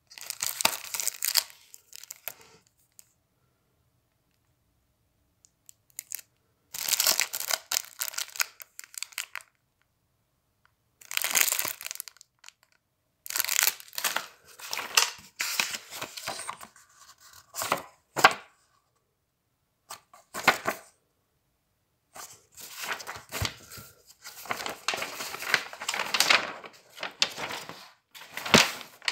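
Paper and plastic card-game packaging being handled in about six bursts of rustling with quiet gaps between; near the end a folded glossy paper playmat is opened out.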